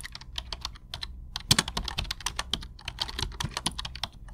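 Keyboard typing sound effect: quick, uneven key clicks, several a second, as lines of on-screen text are typed out.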